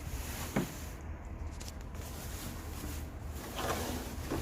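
Curtains being handled and pushed into a washing machine, with fabric rustling over a steady low hum and one light knock about half a second in.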